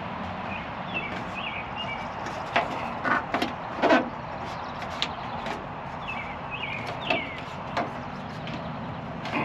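A few sharp knocks and taps from work on a downspout strap, the loudest about four seconds in, over a steady background hum. Birds chirp briefly twice.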